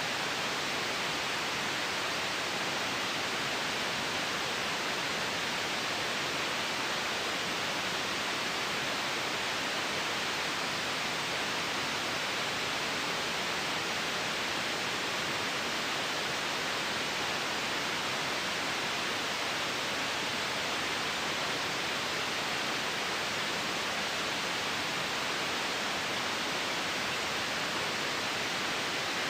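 Continuous white noise: an even, unchanging hiss.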